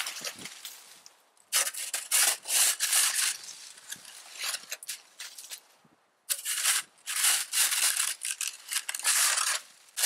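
Red plastic snow shovel scraping and crunching into deep snow and throwing it, stroke after stroke. The strokes come in two spells with a quieter lull around halfway.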